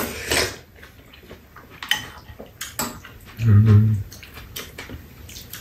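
Metal spoons clicking against bowls and a metal tray during a meal, with a short low hummed voice sound a little past halfway through.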